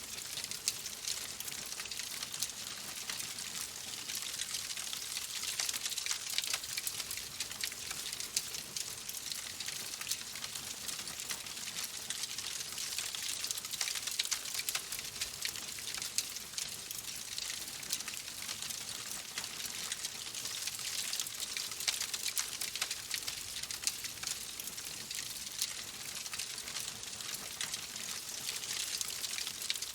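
Wood fire crackling in a fireplace: a steady hiss thick with fine, quick pops and snaps.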